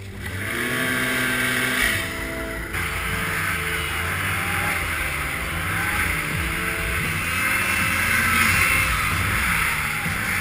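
Snowmobile engines running hard and revving up and down over the rush of the sled moving through snow. The sound changes abruptly about three seconds in.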